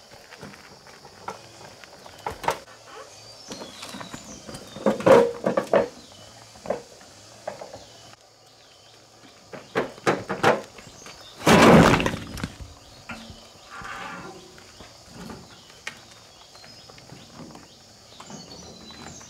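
Stones knocking and clacking irregularly as they are handled, with one louder crash lasting under a second about twelve seconds in.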